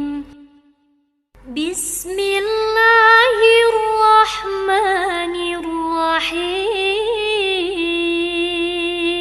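A solo female voice singing a slow, ornamented melody with sliding notes and long held tones, unaccompanied. A held note fades out at the start, and after about a second of silence a new phrase begins.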